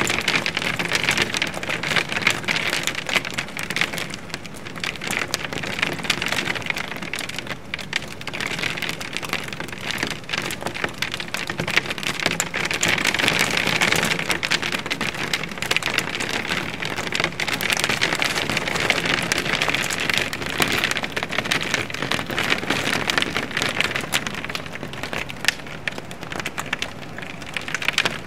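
Hail and heavy rain hitting a window pane: a dense, steady patter of many small hits that swells and eases every few seconds.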